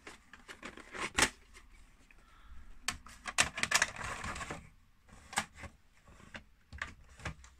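A VHS cassette being pushed into the front loading slot of a Hitachi VT-M640E VCR: scattered plastic clicks and knocks, with a scraping slide about three seconds in. The deck fails to accept and draw in the cassette.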